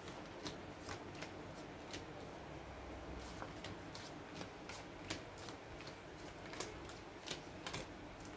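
Petit Lenormand cards being dealt face down one after another onto a table: faint, irregular light clicks and slaps as each card is laid down, about two or three a second.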